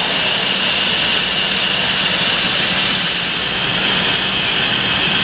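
Spindle of an Okuma & Howa 2SP-25HG CNC twin-spindle vertical lathe spinning at speed: a loud, steady high whine over a low hum.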